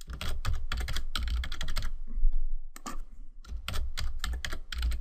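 Computer keyboard typing quickly in two runs of keystrokes with a short pause near the middle: a password typed and then typed again to confirm it.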